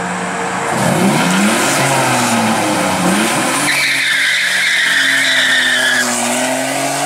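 Nissan 300ZX's V6 engine revved in about three quick blips, then the car launches with its tyres squealing for about two seconds while the engine note climbs steadily.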